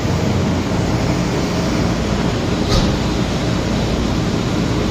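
Buick Electra 225 engine idling: a steady low rumble with hiss, and a single short click about three seconds in.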